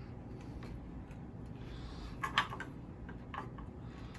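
Hard statue parts clicking and knocking against each other as they are handled and fitted together: a cluster of sharp clicks a little past halfway and a couple more later, over a low steady hum.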